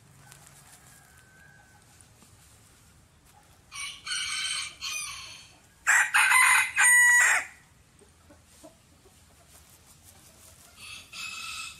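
Rooster crowing: a crow of about a second and a half starting about four seconds in, a louder, several-syllable crow right after it, and another crow beginning near the end.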